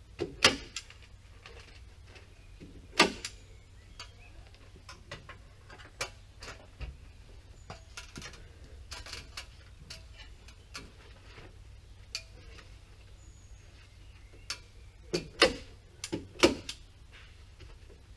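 Hand staple gun snapping staples through a plastic building membrane into a timber frame: sharp clicks at irregular intervals, the loudest about half a second in, at about three seconds and in a quick cluster near the end, with fainter taps and rustles between.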